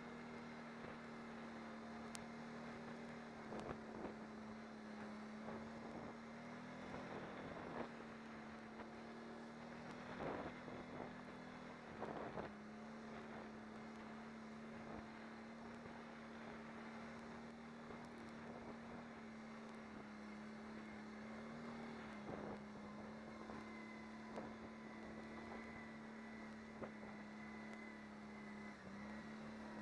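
Can-Am Renegade 500 ATV's single-cylinder engine running at a steady cruise, its pitch stepping slightly up and down a few times with the throttle, with wind on the microphone and a few short knocks in the first half.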